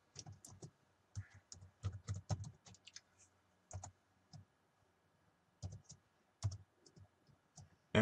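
Typing on a computer keyboard: short runs of irregular key clicks with brief pauses between them.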